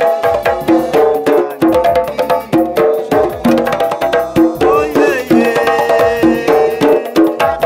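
Several skin-headed hand drums played together in a fast, steady, repeating rhythm.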